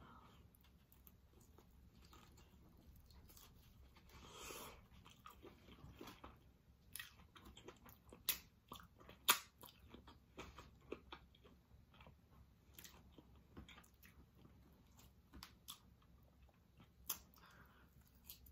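A person eating barbecued baby back ribs, gnawing the meat off the bone: faint chewing and wet mouth smacks with scattered sharp clicks, the loudest a little past the middle.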